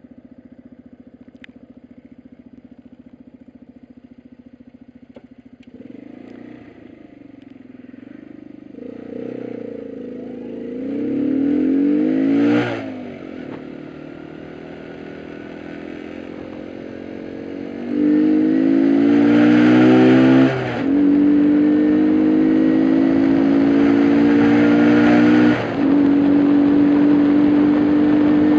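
2006 Superbyke RFX50 50cc motorbike engine, heard from the rider's seat, holding a steady low note for the first few seconds, then accelerating: the pitch climbs in repeated sweeps as it is ridden up through the gears, with a sharp drop about halfway and brief dips near three-quarters and near the end as gears change.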